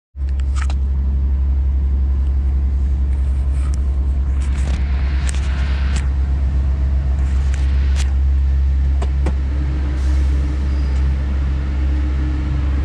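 Scania truck's engine and drivetrain heard from inside the cab while driving: a strong, steady low drone, with a few short clicks and rattles scattered through it.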